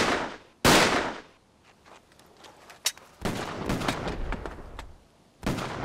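Gunfire in a night firefight: a single loud shot about half a second in, a rattle of quieter overlapping shots from about three seconds in, and another loud shot near the end.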